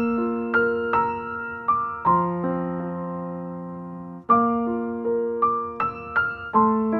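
Background music: a slow keyboard piece on piano or electric piano, single notes struck about once or twice a second over held lower notes.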